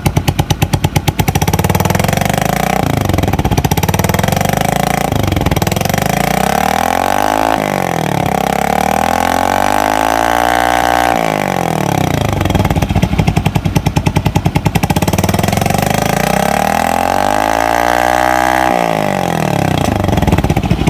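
Suzuki Smash 115's single-cylinder four-stroke engine running through a replica AUN aftermarket exhaust with its silencer insert fitted, blipped from a pulsing idle up to about half revs and back several times, the pitch rising and falling with each rev.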